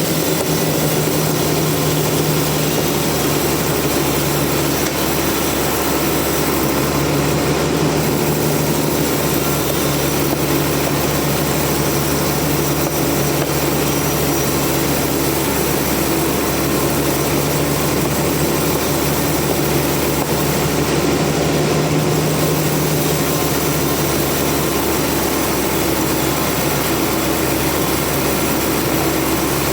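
Sawmill machinery running steadily: a continuous engine-like drone whose low tone dips and returns a few times.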